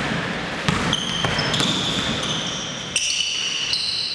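Basketball shoes squeaking on a hardwood gym floor during play: a run of high squeaks from about a second in, with a couple of ball bounces on the floor.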